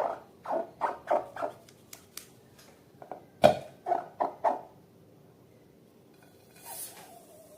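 Slime being squeezed and pressed by hand, giving a run of short wet squelches about two to three a second, with a louder one about three and a half seconds in; the squelching stops about five seconds in.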